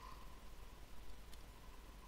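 Very quiet room tone with a faint steady high tone, and a faint click a little past the middle as the plastic hinge cover of a ThinkPad T61 laptop is handled and fitted by hand.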